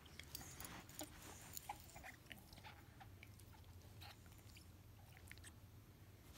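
Golden retriever chewing a ring-shaped chew toy: faint, irregular clicks and snaps of teeth working on the toy, more frequent in the first few seconds.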